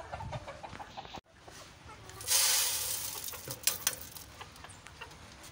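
Chicken feed grain poured into a metal poultry feeder pan: a rushing hiss lasting about a second, followed by scattered sharp clicks of hens pecking at the grain, with some clucking.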